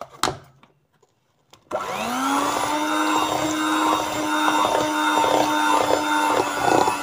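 Electric hand mixer switched on about two seconds in, its motor spinning up to a steady hum as the beaters churn an egg into creamed butter and sugar.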